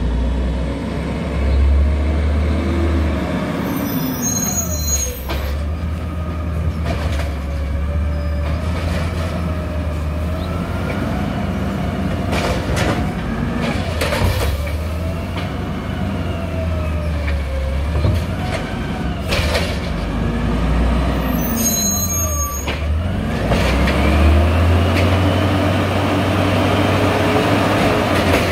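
Peterbilt 320 refuse truck's natural-gas engine running and revving up and down again and again as it powers the Amrep automated side loader's hydraulic arm to lift and dump recycling carts. The air brakes hiss twice, and there are a few sharp knocks as the carts are dumped.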